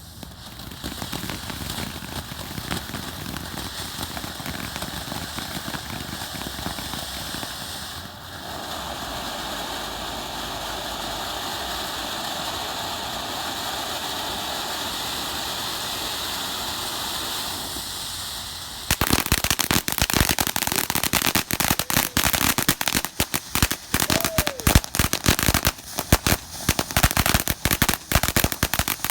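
Consumer ground-fountain firework spraying with a steady hiss that shifts in tone about eight seconds in, then turning about nineteen seconds in to a rapid, dense crackling of popping sparks.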